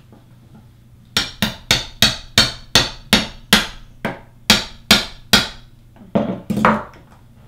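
A claw hammer striking the handle of a red-handled tool held against a small white plastic device, in a quick series of sharp taps, about three or four a second, starting about a second in, with a short pause and a few more strikes near the end. The taps are driving the tool into the plastic to crack the case open.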